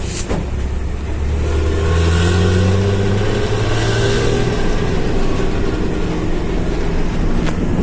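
Diesel engine of a local intercity bus running under way: a low, steady drone that grows louder about one and a half seconds in.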